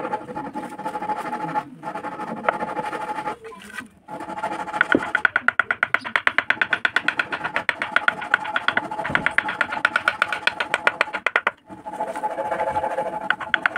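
Hand chisel working a wood carving in fast, even light strokes, making a rapid ticking of about seven a second over a steady hum.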